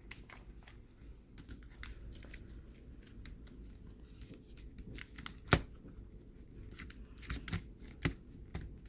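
Scattered small clicks and rustling of hands fitting a laptop battery into the open chassis, with one sharp click about five and a half seconds in and a few more near the end.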